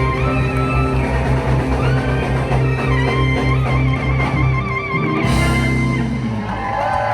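Rock music: electric guitar over bass and a drum kit, with a cymbal crash about five seconds in.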